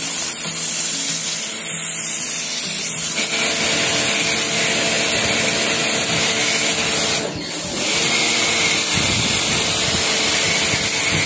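Pressure washer's high-pressure jet hissing against a wet concrete floor. The spray cuts off briefly about seven seconds in, then starts again.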